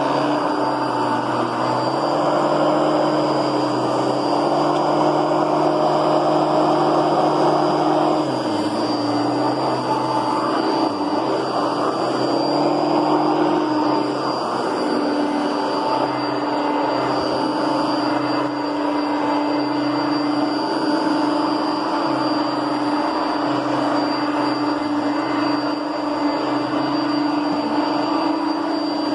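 Kenmore Heavy Duty Plus 6.4-amp upright vacuum cleaner running steadily with a constant hum and high whine, its pitch dipping briefly a couple of times.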